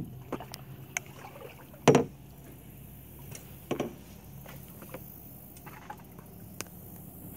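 Paddling a canoe: a handful of sharp knocks of the paddle against the hull and the water, the loudest about two seconds in and a double one near four seconds, over a faint steady background.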